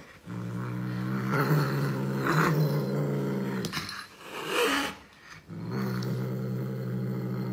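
Domestic cat growling, a long low steady growl. A little past halfway it breaks off for a short higher yowl, then the growl resumes.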